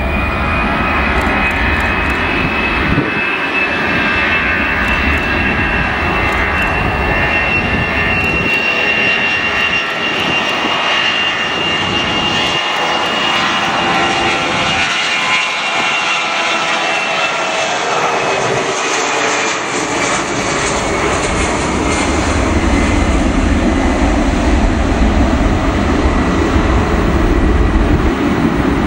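Ilyushin Il-76TD-90VD's four PS-90A turbofans at takeoff power as the freighter rolls down the runway and lifts off: a steady high whine over a broad rumble. The whine drops in pitch about two-thirds of the way through as the aircraft passes, and the low rumble grows stronger toward the end as it climbs away.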